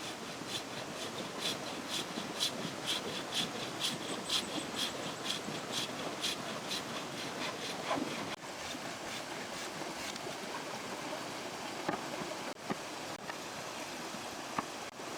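Rhythmic scraping strokes of a hand tool working wood, about two a second, over the steady rush of the river. The strokes stop about halfway through, leaving the river and a few small knocks.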